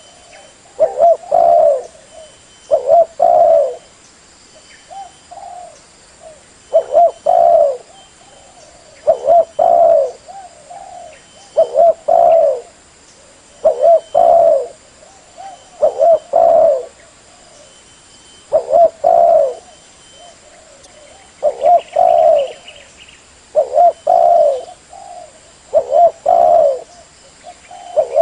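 Spotted dove (terkukur) cooing: the same short multi-note phrase repeated about every two seconds, with softer notes in the gaps.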